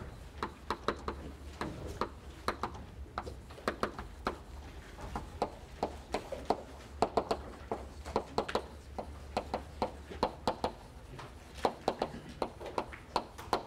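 Chalk writing on a blackboard: an irregular run of small sharp taps and short scrapes as letters are written, over a faint steady low room hum.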